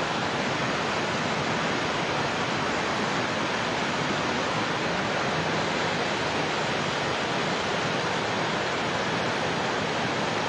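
Kushiyara river floodwater rushing fast through a breach in its embankment: a steady, even roar of turbulent water.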